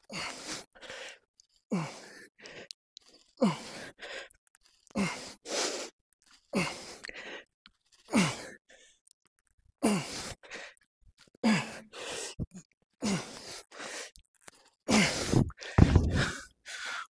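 A man breathing hard through the reps of a heavy single-arm dumbbell row. Each rep brings a short grunting exhale that falls in pitch, followed by a sharp breath, about every second and a half, around ten times. Near the end comes a louder low thud as the dumbbell comes down.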